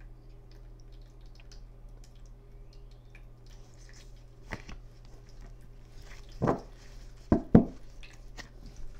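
Steady low hum with faint ticks, then a handful of short soft thumps from about four and a half seconds in. The loudest two come close together about seven and a half seconds in.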